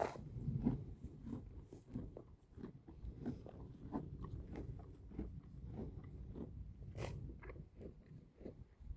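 A horse grazing: grass torn and crunched between its teeth in a steady run of bites, about two a second.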